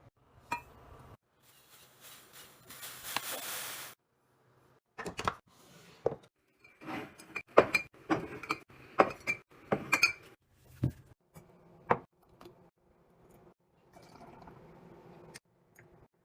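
Glass jars and bottles clinking and being set down one after another, several with a brief ring. Near the start a hiss swells for a couple of seconds and cuts off suddenly.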